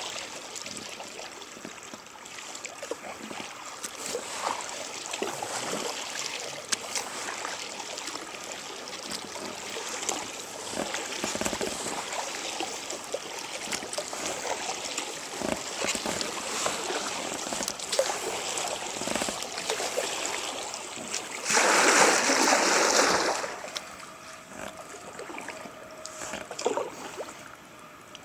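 Double-bladed kayak paddle dipping and pulling through river water, with repeated splashes and water dripping and trickling off the blades. About three-quarters of the way through comes a louder rush of noise lasting about two seconds.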